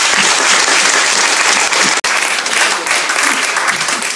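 A crowd applauding: dense, steady hand-clapping, with a momentary break about halfway, thinning into more separate claps near the end.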